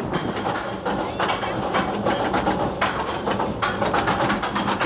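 Roller coaster train being hauled up the lift hill: the lift chain clanking and the anti-rollback ratchet clicking in a steady run as the car nears the crest.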